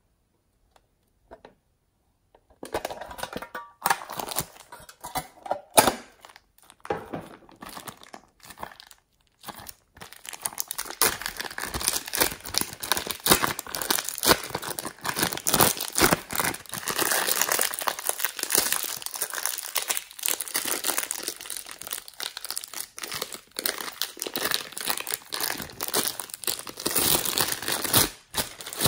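Clear plastic zip-lock bag crinkling as hands squeeze and knead slime inside it and work it out of the bag. The crinkling starts about three seconds in and grows denser and steadier from about ten seconds in.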